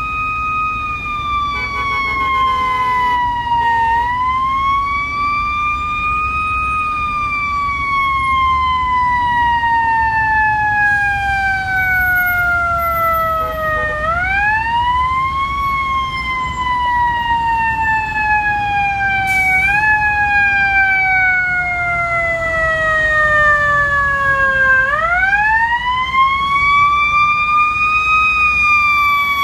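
Fire truck's mechanical Federal Q siren, spun up and left to coast. It holds one high tone, then sinks slowly, and is wound back up three times, each rise quick and each wind-down long and gradual.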